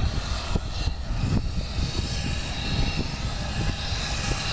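Boeing 737-800 jet engines running steadily, a whine of several high tones over a deep rumble.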